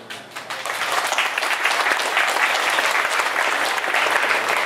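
Audience applauding with many hands clapping, swelling over the first second and then holding steady.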